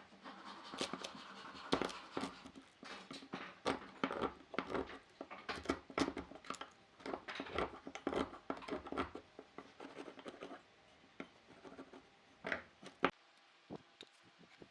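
Quick, irregular scratching and light knocks, dense for about ten seconds, then a few scattered clicks before they stop.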